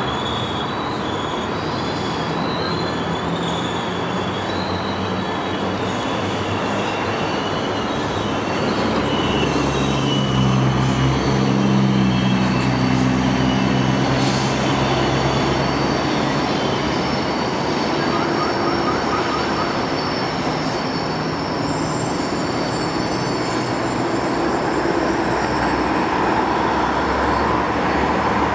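Diesel passenger trains rolling past on the tracks: a steady rail rumble with thin high squeals from the wheels, and a diesel engine drone that swells for several seconds near the middle.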